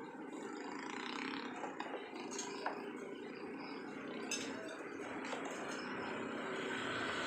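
Dishes being hand-washed: a few sharp clinks of crockery over a steady background hiss.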